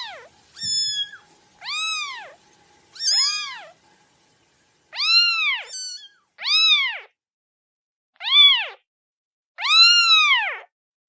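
Kitten meowing repeatedly: about seven high meows with short pauses between, most rising then falling in pitch.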